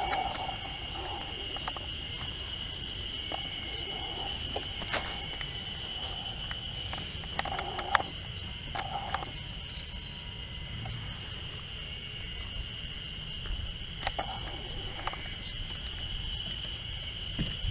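Steady high-pitched insect drone over a low outdoor rumble, with a few sharp clicks scattered through it.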